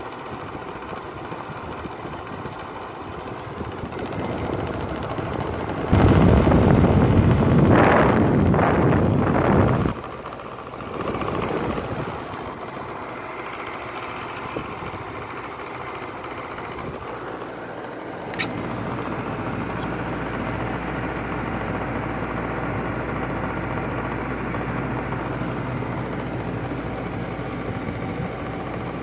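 LG 5,000 BTU window air conditioner running with fan and compressor on, a steady mechanical hum with a rattle. A loud rushing noise lasts about four seconds, starting about six seconds in. About 18 seconds in, after a click, a louder, steadier low hum sets in.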